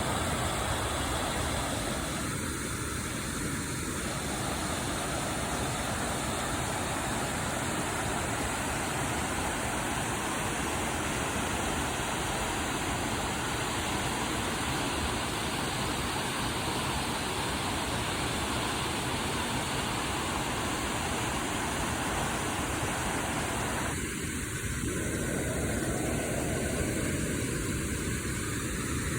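Steady rush of fast-flowing water from the stream and falls, with no rhythm or break.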